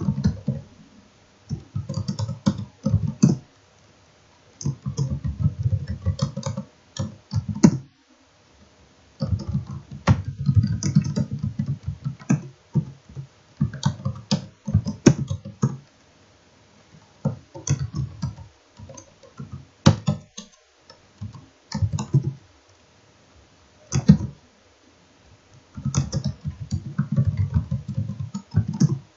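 Computer keyboard being typed on in a series of short runs of rapid keystrokes, each a second or three long, with pauses of about a second between them as words are entered one after another.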